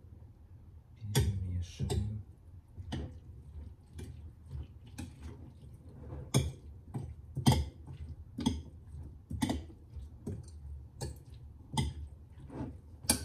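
A fork stirring a yogurt-dressed salad in a glass bowl: uneven clinks of the fork against the glass, about one or two a second, with soft wet mixing between them.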